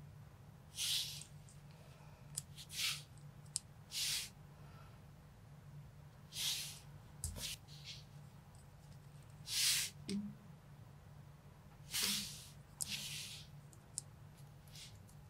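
Small plastic Lego minifigure parts handled and fitted by fingers: short scratchy rubs of skin on plastic and a few light clicks, every second or two. A faint steady low hum runs underneath.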